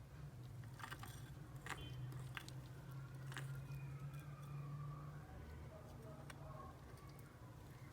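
A few faint, light clicks of kitchen utensils over a low steady hum, with a faint wavering tone in the middle.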